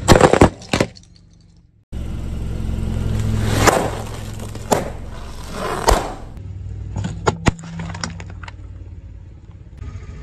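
A car tyre rolls over a row of plastic disposable lighters, which crack and burst in a quick string of loud snaps. After a cut, a car runs low as its tyre rolls over small filled objects, with three sharp pops about a second apart, then a few fainter clicks.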